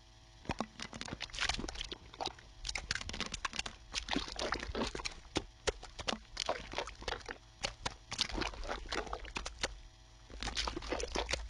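Wet eating noises from berries being spooned into and mashed inside a CPAP mask: irregular smacks, squishes and splats, several each second, over a low steady hum from the CPAP machine.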